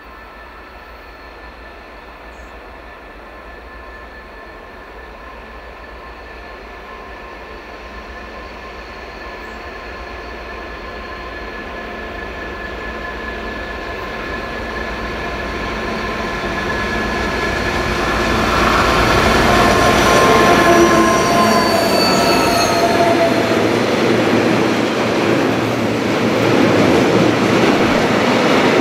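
Two DR Class 232 'Ludmilla' diesel locomotives with their 16-cylinder Kolomna engines working hard at the head of a loaded tank-car train, growing steadily louder as they approach. Their engine tones drop in pitch as they pass about twenty seconds in. The rumble and clatter of the tank wagons rolling by follows.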